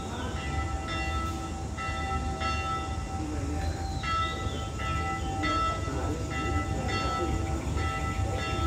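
Church bell rung repeatedly, a fresh stroke about every three-quarters of a second with its ringing tones carrying over between strokes, above a steady low rumble.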